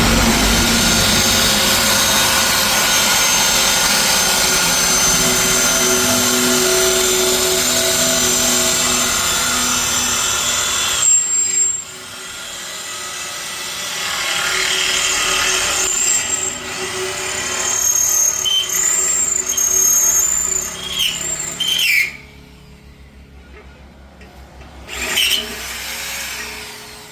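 Electric drill boring into a steel air tank, running steadily with a high whine, then stopping about eleven seconds in and starting again in shorter runs whose pitch slides as it slows and speeds up, with a last short burst near the end.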